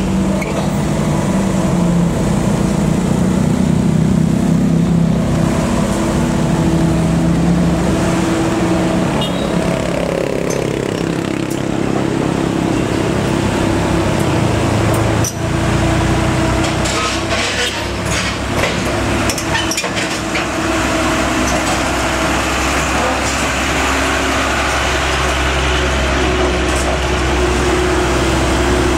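Diesel engines running steadily as traffic passes close by, with a falling engine note early on and a few sharp clicks and knocks about halfway through.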